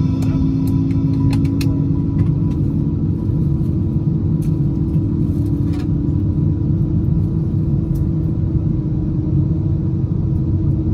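Steady low rumble of an Airbus A319 heard from inside the passenger cabin: engine and airflow noise with a steady hum, and a few faint clicks in the first couple of seconds and again around the middle.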